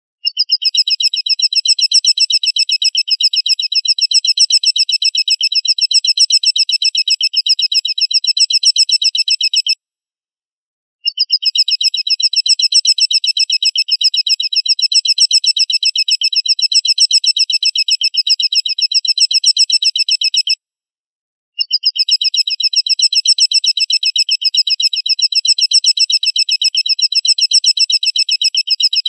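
A bird call presented as an eagle's: a shrill, very rapid high-pitched trill held in three long phrases, with short breaks about ten and twenty-one seconds in.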